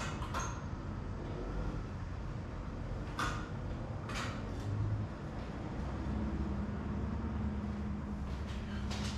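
A few short knocks and clatters as a painted panel is handled and set on an easel, over a low steady hum.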